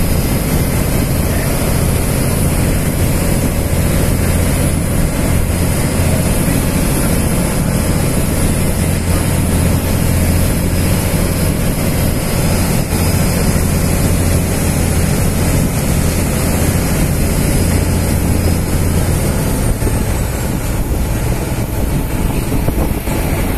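Harbour ferry boat's engine running with a steady low drone, with water rushing along the hull.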